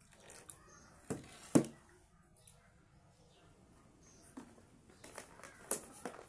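Containers being handled on a table: two sharp knocks about a second and a half in, the second the louder, then faint scraping and a few small clicks near the end.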